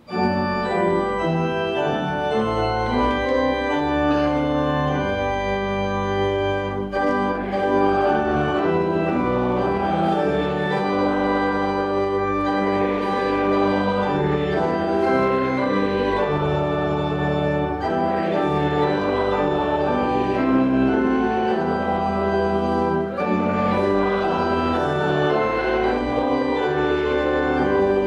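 Church organ playing music in full sustained chords, with bass notes changing every second or two.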